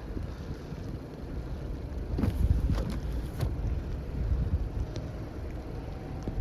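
Wind buffeting the microphone in a snowstorm: a steady low rumble, with a few louder gusts between about two and three and a half seconds in.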